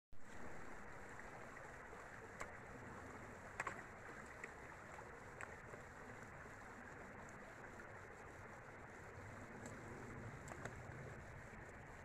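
Shallow mountain creek running over rocks, a steady rush of water, with a few sharp clicks a few seconds in.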